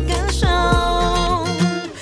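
Background song: a singer holds one long note over a steady beat.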